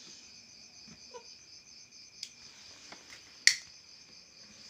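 Crickets chirping in a steady, fast-pulsing trill, with a few faint clicks and one sharp click about three and a half seconds in.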